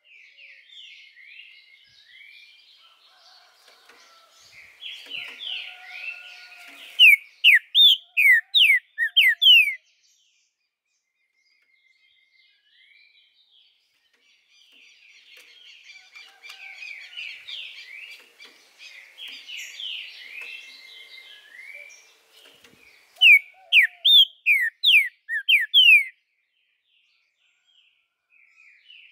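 Green-winged saltator (trinca-ferro) singing. A soft, rambling twitter builds twice into its loud song phrase: about six sharp, falling whistled notes in a row, each phrase lasting about three seconds.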